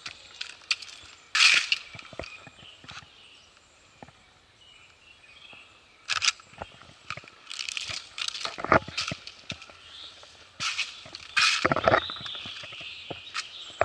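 Irregular crunches and rustles close to the microphone, loudest in bursts about a second and a half in, around six seconds in, and several times between about eight and twelve seconds in.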